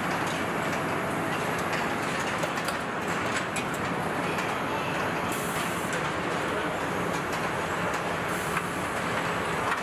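Car assembly plant floor ambience: a steady mechanical din of conveyors and machinery, with scattered light clicks and two short high hisses, one about five seconds in and one near the end.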